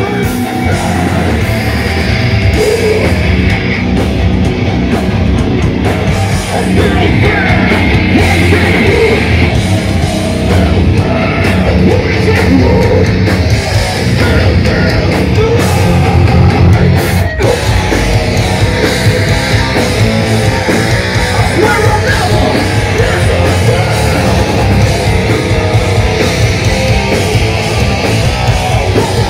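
Hardcore band playing live at full volume: heavily distorted electric guitars and drums, heard from inside the crowd.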